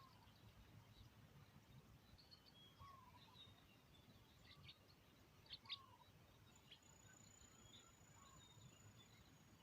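Faint outdoor ambience of small birds chirping, with a few short falling call notes repeating every few seconds and a sharper pair of chirps about halfway through. A thin, steady high tone comes in about two-thirds of the way through.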